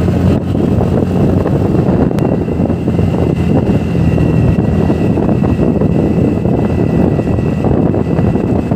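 Wind rushing over the microphone with a TVS NTorq 125 scooter's single-cylinder engine running at a steady highway cruise, with a faint steady high whine.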